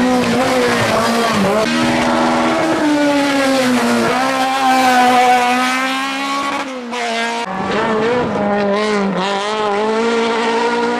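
Hill-climb race car engines at high revs, the pitch rising and falling as the driver works the throttle and gears. About seven seconds in the sound breaks off briefly, and a second car, a Ford Escort Mk2 rally car, takes over.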